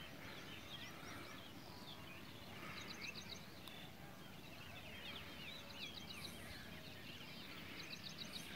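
Faint birdsong over a quiet outdoor background: scattered short chirps and slurred notes, with a quick run of rapid notes about three seconds in and again near the end.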